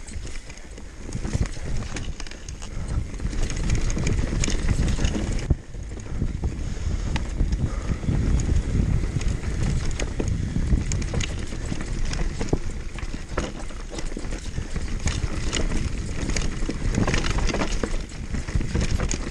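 Downhill mountain bike going fast down a rough trail: tyres rumbling over dirt and rocks and the bike rattling, with many sharp knocks and clacks, over wind on the microphone.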